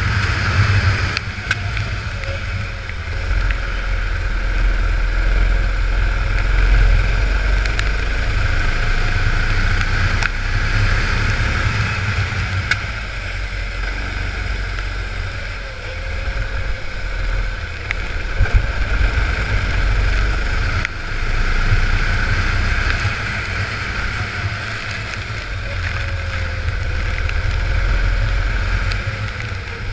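Go-kart engine running on track, its note rising and falling through the corners, with wind buffeting the onboard microphone. Heard over the hiss of tyres on a wet track.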